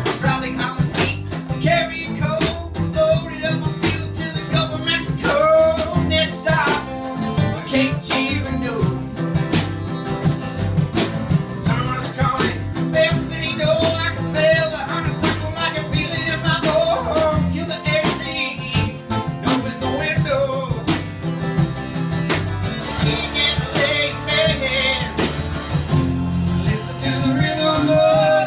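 Live country-rock band playing: strummed acoustic guitars, electric bass and a drum kit keeping a steady beat, with a lead melody bending over the top. Cymbals wash louder for a few seconds near the end.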